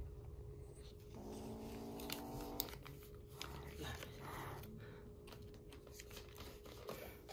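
Young kitten growling low and steady for about a second and a half, then a short hiss a couple of seconds later: the defensive warning of a frightened kitten refusing to be fed. A couple of small clicks come during the growl.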